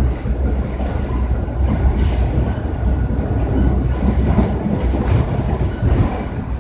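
Toronto subway train running at speed, heard from inside the car: a steady low rumble of steel wheels on the rails with a few clacks.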